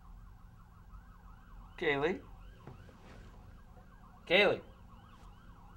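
A siren-like sound: a faint, fast warbling tone that runs on, with a louder swooping wail twice, about two and a half seconds apart.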